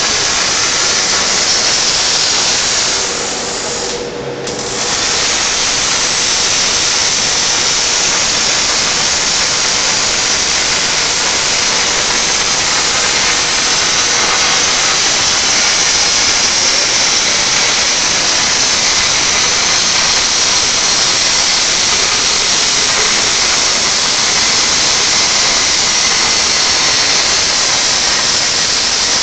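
Panasonic robotic welding torch's arc sizzling steadily as it lays a MIG weld along a steel part, with spatter. The arc sound drops briefly about four seconds in, then carries on unbroken.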